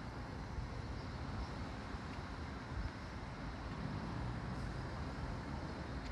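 Steady outdoor street noise: a low rumble of road traffic.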